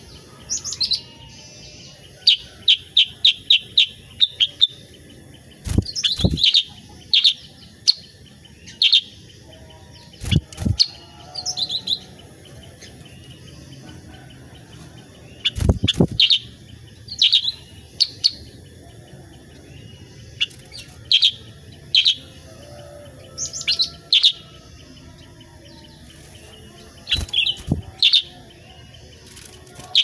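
Caged black-headed bulbul (kutilang sutra) calling in short, loud, clear chirps, singly and in quick runs, including a rapid string of about six notes early on, with pauses between phrases. A few soft thumps of wing flapping come as it flutters in the cage, one about halfway through.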